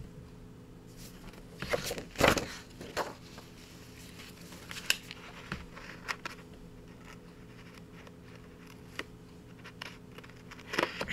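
Paper and card being handled for gluing with double-sided tape: scattered rustles, crinkles and light taps, the loudest a crinkle about two seconds in, over a faint steady hum.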